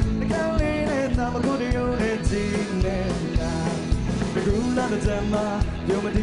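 Live rock song: a band with a steady drum beat and a man singing the melody over it.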